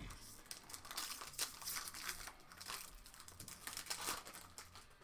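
Foil Magic: The Gathering booster pack wrapper crinkling and tearing as it is opened by hand: a dense run of crackles that eases off near the end.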